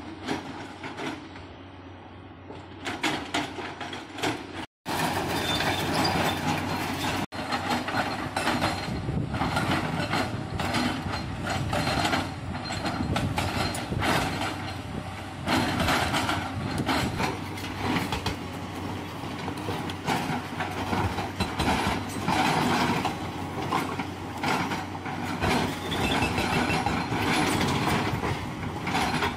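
Epiroc (Atlas Copco) MM1500 hydraulic rock breaker on an excavator boom hammering into quarry rock in a rapid, continuous run of blows. It is quieter for the first few seconds, then loud from about five seconds in.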